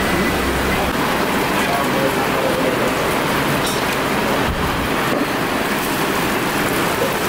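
Steady, even hiss that does not let up.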